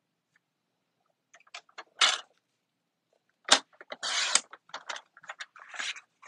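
Cardstock being handled and trimmed for a card: scattered small clicks and short paper swishes, with a sharp knock about three and a half seconds in.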